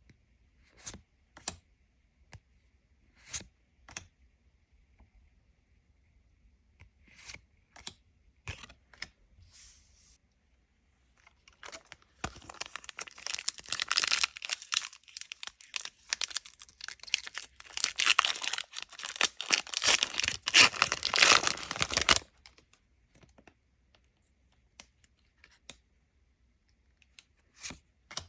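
A Lorcana booster pack wrapper being torn open and crinkled for about ten seconds, starting about twelve seconds in. Before and after, scattered light clicks and taps of cards being handled.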